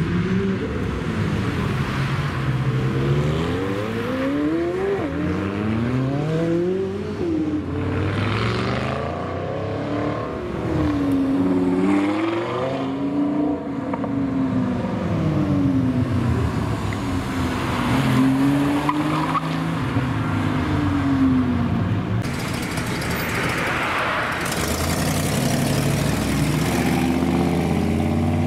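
Sports cars accelerating hard one after another, their engines revving up and dropping in pitch again and again as they shift through the gears. Near the end a deeper, steadier engine note.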